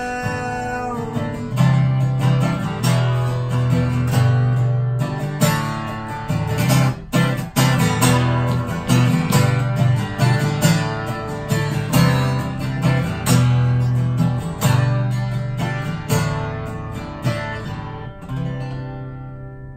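Acoustic guitar strummed and picked through the closing instrumental bars of a song, then a last chord left ringing and fading out near the end.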